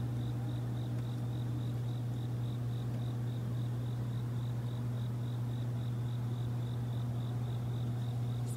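Insects chirping outdoors in an even rhythm, about three high chirps a second, over a steady low hum.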